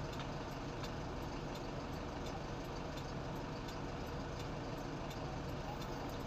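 Engines running steadily aboard a river car ferry: an even, low drone with faint ticking.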